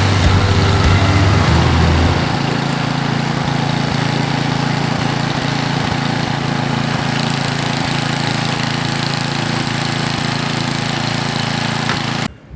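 An engine running steadily. Its deepest hum drops away about two seconds in, and the sound cuts off abruptly near the end.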